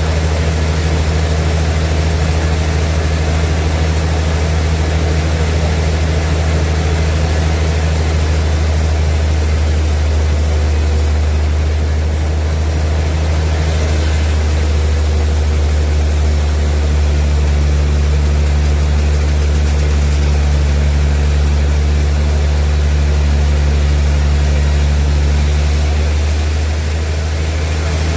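Large sawmill machinery running with a loud, steady low drone. The hum shifts slightly a few times along the way.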